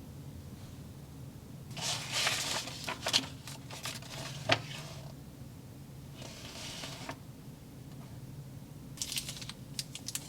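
Toy slime from a Zuru Slime Mart kit being worked by hand: squishing and crackling in three bursts, with sharp clicks about three and four and a half seconds in.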